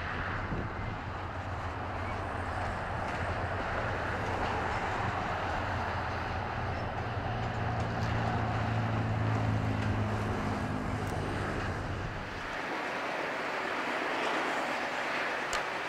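GE Dash 8 locomotive's 7FDL-16 diesel engine running as the train moves past, a low steady drone over a rushing noise of wheels on rail. The engine drone grows louder toward the middle, then cuts off abruptly about twelve seconds in, leaving only the higher rushing noise.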